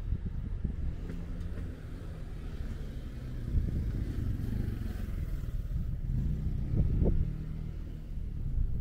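A motor vehicle's engine running close by with a steady low hum, and a swell of road noise about four to five seconds in as it passes.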